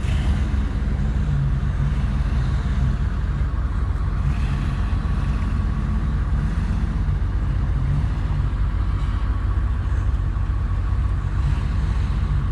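Truck engine running steadily with a deep, even rumble.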